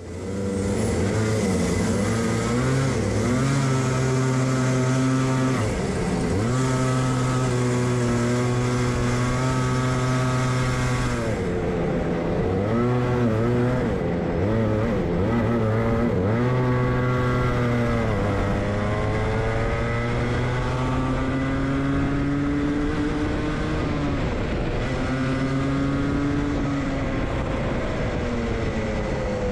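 Onboard sound of a Rotax two-stroke kart engine running hard, its pitch repeatedly rising and falling as the kart accelerates and lifts off around the circuit.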